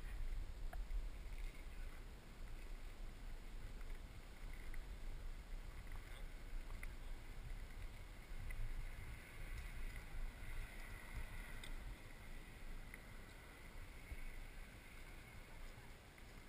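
Low, uneven rumble of wind buffeting the microphone, with faint outdoor ambience.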